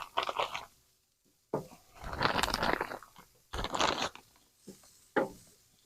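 Frozen hamburger patties being handled and set onto a charcoal grill's grate: a few short, irregular crunching and crinkling noises with quiet gaps between them.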